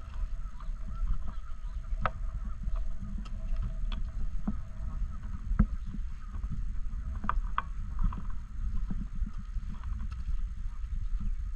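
Canada geese honking faintly over a steady low rumble, with scattered sharp knocks and splashes about two, four, five and a half and seven seconds in.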